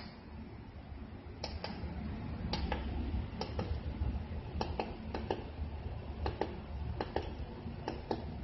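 Short sharp clicks, mostly in quick pairs, repeating about once a second over a low steady rumble.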